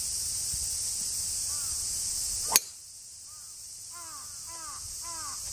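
A golf driver strikes the ball off the tee about two and a half seconds in: one sharp crack. A crow caws repeatedly, about twice a second near the end, over a steady high insect drone.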